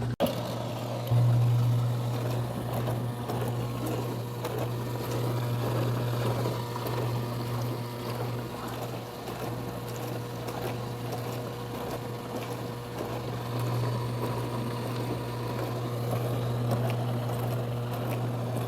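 COMFEE portable countertop mini dishwasher running its wash cycle: the steady hum of its pump motor with water spraying and sloshing inside the tub. It gets louder about a second in.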